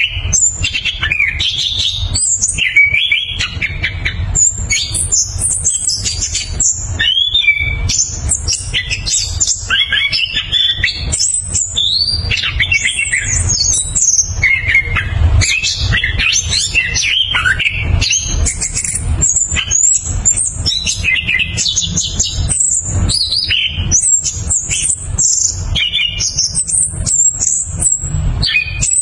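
Chestnut-capped thrush (anis kembang) singing a continuous, varied song of whistled phrases and fast rolling trills, with a steady low rumble underneath.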